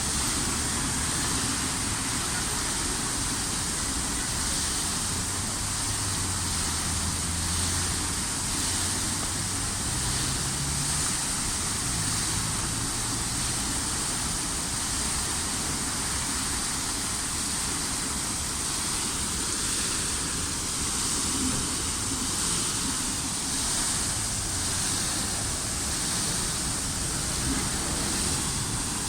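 Steady rushing splash of a fountain's falling water, with a low rumble of passing traffic underneath.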